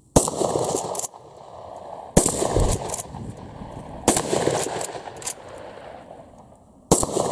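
Uzkon LA887 lever-action 12-gauge shotgun firing four shots of 9-pellet 00 buckshot, about two seconds apart, each shot followed by about a second of echo.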